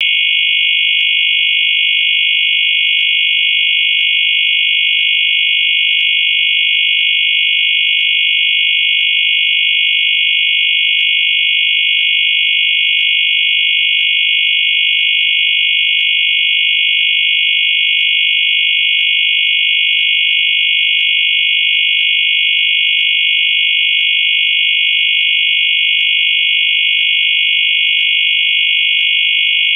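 A loud, continuous high-pitched electronic tone that holds steady without a break, with faint clicks under it about once a second.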